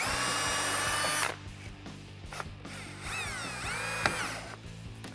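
Cordless drill boring through the ABS-plastic chin splitter: a loud steady whine for about a second, then a quieter stretch, then the motor whining again as its speed dips and climbs back up, with a sharp click near the end of that run.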